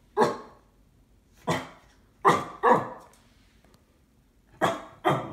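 American cocker spaniel barking suspiciously at an unfamiliar cardboard parcel. There are six short, sharp barks at uneven spacing: a single bark, another, then a quick pair, a pause of nearly two seconds, and another quick pair near the end.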